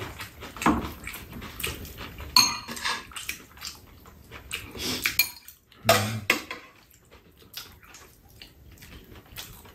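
Metal spoons and chopsticks clinking and scraping against ceramic bowls while eating: a scatter of small taps, with one brief ringing clink about two and a half seconds in.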